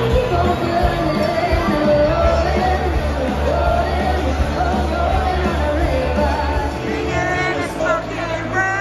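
Amplified live band music with a heavy bass and a crowd of people singing along, with some shouts, in a large, packed beer hall.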